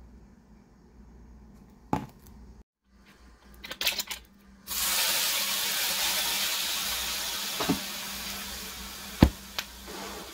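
Food sizzling in a hot frying pan on an electric hot plate, starting suddenly about halfway through as it goes into the pan and then running steadily. A few sharp knocks and clicks come before and during it, the loudest near the end.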